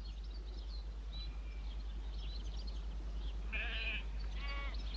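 Two short animal bleats about three and a half and four and a half seconds in, the second with a wavering, pulsing tone. They sit over a steady low hum and faint high chirps.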